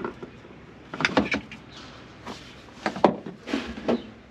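A handful of short, light knocks and clicks from seat-belt hardware and plastic trim being handled, about five in all, the loudest about three seconds in.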